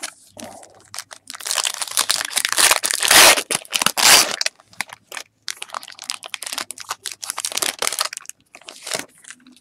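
Foil wrapper of a Topps Chrome football card pack being torn open and crinkled by hand: a loud, dense crackling in the first half, then lighter, scattered crinkles.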